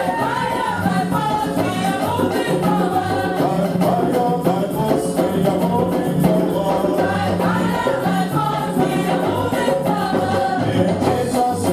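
Gospel praise music: group singing over a steady bass line and hand percussion with a quick beat.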